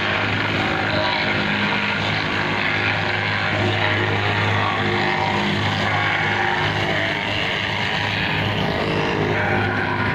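Plate compactor running steadily: its small engine and vibrating plate give a continuous drone with a strong low hum.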